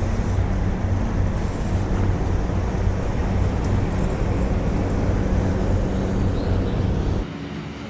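A steady low engine drone under outdoor noise, dropping abruptly to a quieter, duller background about seven seconds in.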